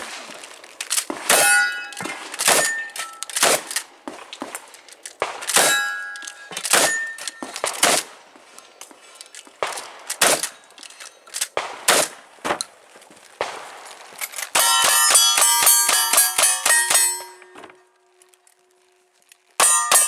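Cowboy action shooting: a string of rifle and then revolver shots at roughly one to two a second, each answered by the clang and ring of struck steel targets. About two-thirds through, the shots and ringing pile up into a dense stretch, then stop for a second or so before revolver shots resume at the end.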